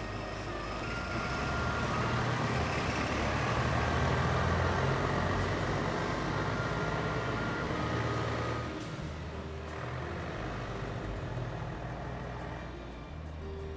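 A vehicle passing by: its noise swells to a peak about four seconds in and fades by about nine seconds, over a steady low hum.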